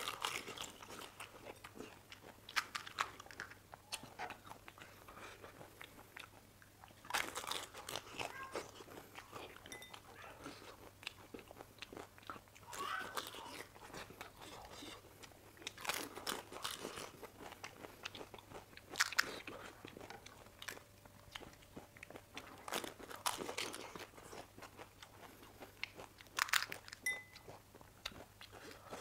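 Close-miked crunching of panipuri: crisp hollow puri shells cracking as they are broken open and bitten, with chewing between, in bursts every few seconds.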